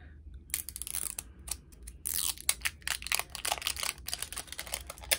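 Cosmetic packaging being handled and opened by hand: a run of quick crackles and rustles, thickest in the middle.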